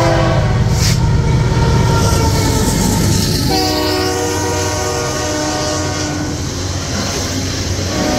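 GE AC4400CW diesel locomotive's air horn sounding a long chord as the locomotive passes; the chord shifts lower about three and a half seconds in as the locomotive goes by and fades out near the seven-second mark. Coal hopper cars rumble and clatter over the rails beneath it throughout.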